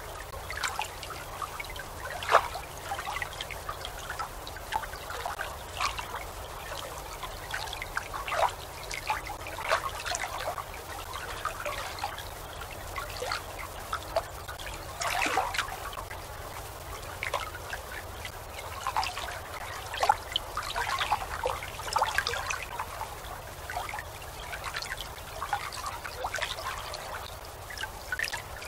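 Small waves lapping and splashing on the river, in short irregular splashes, over a steady low hum.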